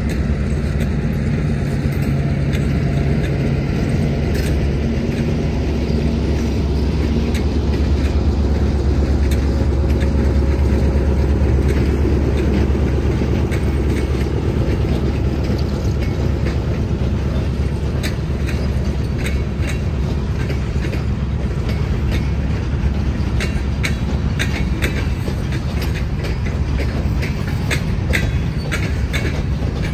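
Diesel-hauled freight train passing close by: a steady heavy rumble with wheels clicking over the rail joints, the clicks coming thicker in the second half.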